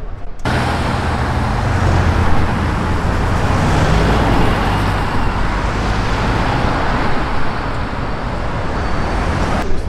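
Loud, steady street traffic noise with a vehicle engine running low underneath. It cuts in abruptly just after the start and stops abruptly near the end.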